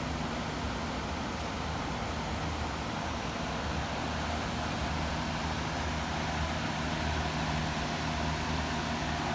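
Steady rush of water pouring over the dam, with a low steady hum underneath.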